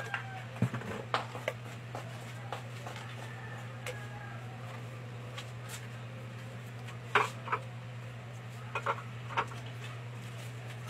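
Scattered light knocks and clicks of goods being handled and set down while shelves are stocked, over a steady low hum. The sharpest knock comes about seven seconds in.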